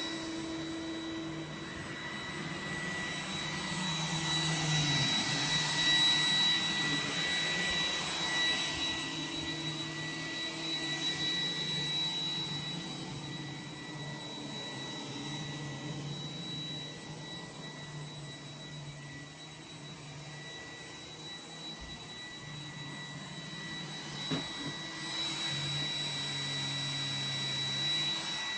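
iRobot Roomba 980 robot vacuum cleaning, its fan giving a steady high whine over the lower hum of its motors, growing louder and fainter as it moves nearer and farther away. One light knock late on.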